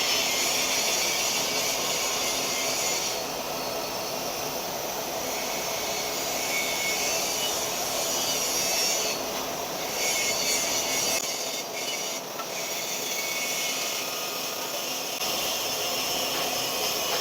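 TIG welding arc on a pipe joint, a steady scratchy hiss as the torch cup is walked around the pipe.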